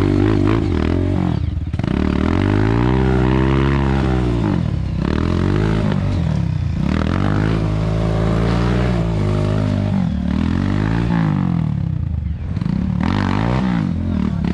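Off-road motorcycle engine running under load, its pitch rising and falling again and again as the throttle is opened and rolled off, with short drops in between.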